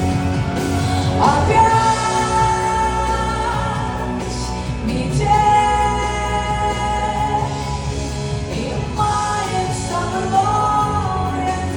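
Live pop song: a female singer holding long notes over a full band accompaniment.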